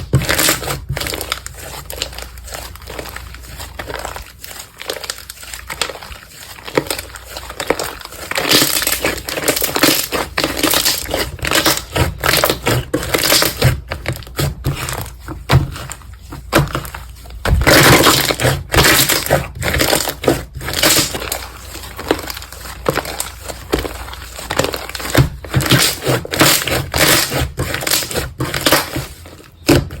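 Slime being squeezed and kneaded by hand, with dense crackling and popping clicks that get louder in stretches.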